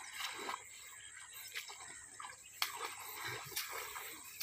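Footsteps and rustling through tall grass, with a few sharp clicks spaced about a second apart.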